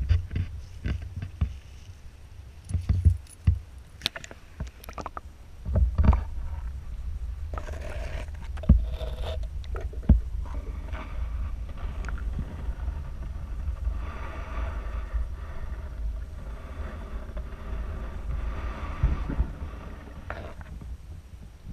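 Sound picked up by a GoPro Hero 3+ inside its sealed waterproof housing: scattered knocks and scrapes on the housing, then from about six seconds in, as it goes underwater in the pond, a steady low muffled rumble with a few dull thuds.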